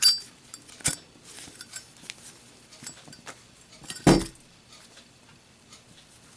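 Brushed-chrome Zippo lighter being handled for a drop test: a sharp metallic click with a brief ring at the start and another click about a second in, then a louder thump about four seconds in as the lighter is dropped.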